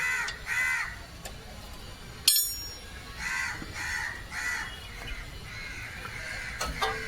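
Crows cawing repeatedly, a string of short harsh calls. About two seconds in, a single sharp metallic clink rings out.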